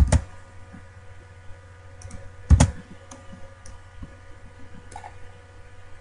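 A few isolated clicks from a computer keyboard and mouse, the two loudest just after the start and about two and a half seconds in, over a steady electrical hum.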